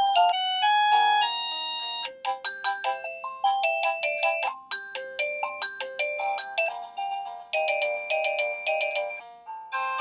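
AVANTEK CB-11 wireless doorbell receiver playing a string of electronic chime melodies, each a quick run of clear beeping notes, one tune giving way to the next as the melodies are clicked through.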